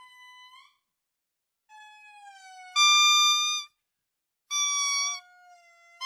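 Indri calling: a series of long, clear wailing notes, each under a second. Two loud notes held at one pitch come about three and four and a half seconds in, with quieter notes sliding down in pitch around them.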